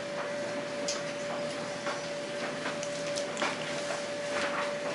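A toddler biting and chewing corn on the cob: irregular short crunches and smacks, about one a second, over a steady hum.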